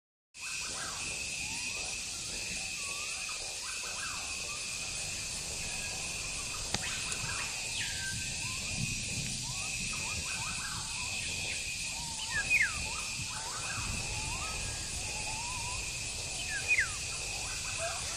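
Outdoor garden ambience: birds chirping and calling in many short rising and falling whistles, over a steady high-pitched hum. Two louder chirps stand out, one about two-thirds of the way through and one near the end.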